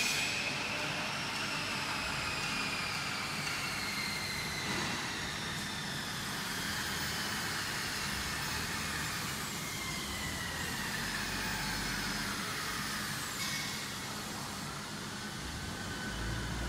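Factory-hall background noise, with several faint high whines that slide slowly down in pitch and overlap, and a brief low rumble near the end.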